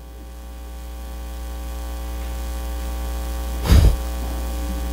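Steady electrical mains hum with its overtones, slowly growing louder, with one brief thump a little over halfway through.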